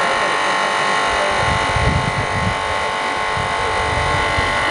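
Hydraulic rescue power unit running steadily, a loud buzzing drone as it drives the hydraulic shears and spreader. A low rumble joins it about a second in.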